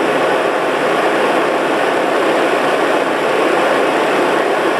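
1984 Corvette's electric radiator cooling fan running at full speed, a loud steady rush of air. The fan is up to speed, drawing about 9 amps.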